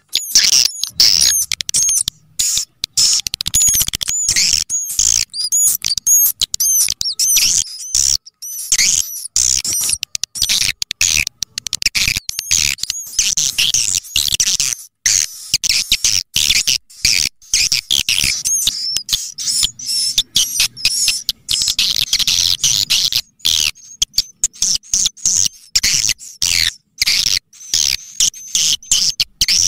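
Swiftlet call recording of the kind played through an amplifier and tweeters to lure swiftlets into a nesting house: fast, high-pitched twittering chirps in dense runs broken by brief pauses.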